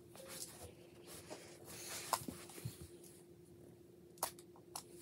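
Plastic magnetic building tiles being handled and set in place: a few sharp clicks and soft scraping, over a faint steady hum.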